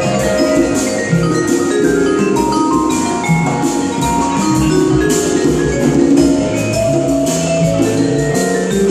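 Latin jazz sextet playing live in 6/8: quick vibraphone lines over congas, piano and electric bass.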